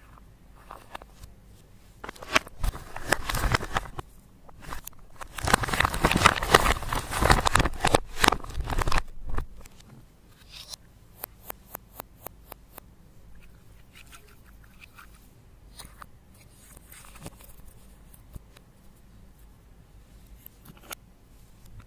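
Close-up handling of makeup and slime: two stretches of crackly scraping and crunching, the second louder and longer, then a quick run of sharp clicks and a few scattered taps.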